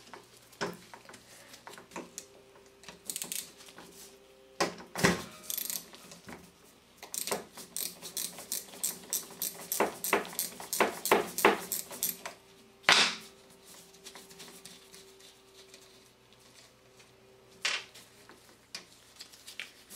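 A 12 mm wrench working the positive motor terminal nut off a starter solenoid: a run of light metallic clicks and clinks, thickest in the middle, with a few sharper knocks. A faint steady hum lies underneath.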